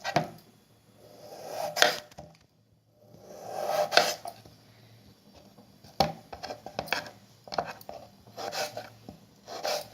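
Kitchen knife slicing through a raw peeled potato into finger-chip strips, each cut a short scrape ending in a sharp knock on the cutting board; a few slow cuts, then quicker ones in the second half.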